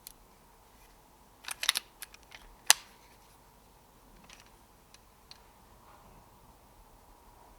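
Sharp mechanical clicks from handling an air rifle: a quick cluster of clicks about one and a half seconds in, then a single louder snap about a second later, followed by a few faint ticks.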